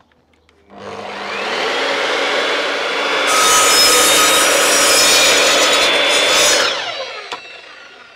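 Evolution Rage sliding mitre saw motor starting and spinning up, then the blade cutting through a grooved decking board for about three seconds. The motor then winds down with a falling whine.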